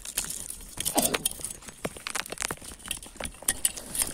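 A metal blade prodding and scraping in the dirt of a paca burrow: a run of irregular sharp clicks and scrapes, a little louder about a second in.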